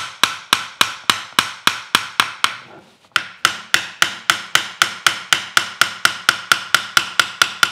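Small brass-headed hammer tapping rapidly and lightly on the rusted cast-iron frog of a Stanley Bedrock 604-1/2 plane, about three to four ringing metallic taps a second, with a brief pause about three seconds in. The taps are driving apart parts that rust has seized together, kept light so as not to crack the casting.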